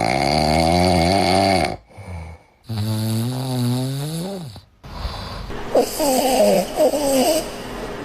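Dog snoring loudly: two long pitched snores, the second rising at its end, then a noisier, wheezier breath with short squeaky whistles in it.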